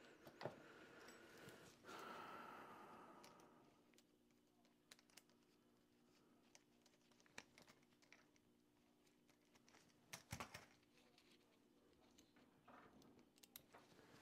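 Near silence: faint room tone with a low steady hum, a few small clicks and a brief soft hiss near the start.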